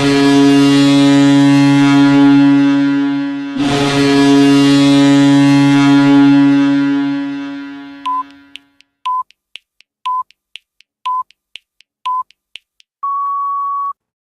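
An NHL arena goal horn sounds two long, loud blasts, the second fading away. It is followed by a countdown timer ticking about twice a second, with a short beep each second and a longer final beep.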